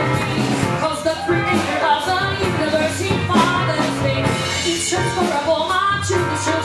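Gospel worship song performed live: voices singing over a band with a steady beat.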